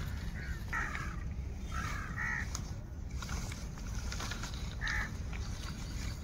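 Birds calling: several short calls in the first two and a half seconds and one more near the five-second mark, over a steady low rumble.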